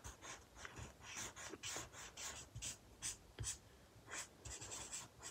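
Faint scratching of a Promarker alcohol marker's tip on paper, in quick short strokes, a few each second, as the hood is coloured in.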